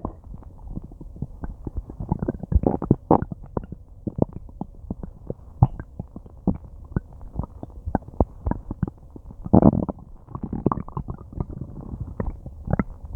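Human stomach and intestines gurgling through a close microphone: a dense, irregular run of small bubbling pops, with a longer, louder gurgle about ten seconds in. It is the sound of the gut working to break down a meal.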